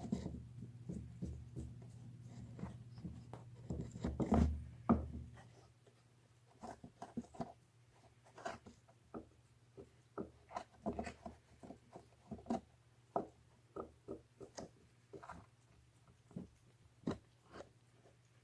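Cat gnawing on a bone: irregular crunches and clicks of teeth on bone, busier and louder for the first five seconds, then sparser.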